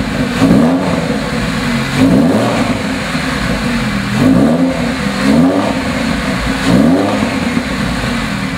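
Porsche 911 Carrera 4S's 3.6-litre flat-six with a B+B stainless exhaust, idling and blipped about five times, each rev rising and then dropping back to idle.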